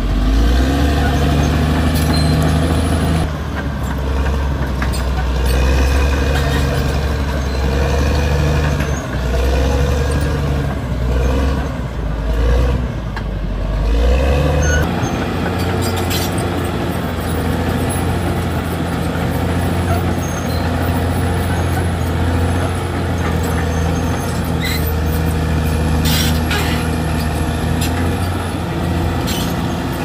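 Caterpillar D6R XL crawler dozer's diesel engine working under load as it pushes soil and brush. The engine note swells and falls repeatedly through the first half, then runs steadier, with a few sharp knocks later on.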